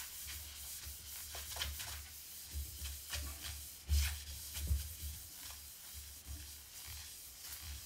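A cloth rubbing over the film-faced plywood face of a sanding disc in irregular strokes, wiping it with methylated spirit to degrease it before a hook-and-loop pad is stuck on, with a few small knocks.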